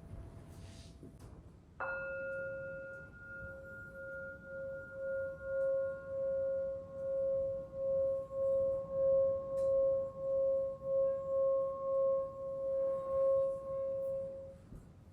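Singing bowl struck once, then sung around its rim: one steady tone with a few higher overtones that pulses and grows louder, and is stopped shortly before the end.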